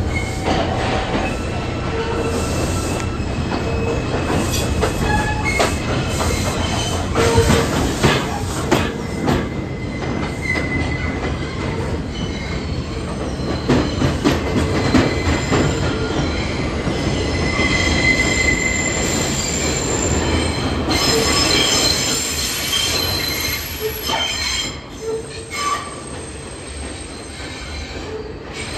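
R142 subway train running, its steel wheels squealing in high, shifting tones over a steady rumble and clicks from the rail joints. The squeal is strongest a little over twenty seconds in and eases soon after. This is typical of a train rounding a tight curve such as the South Ferry loop.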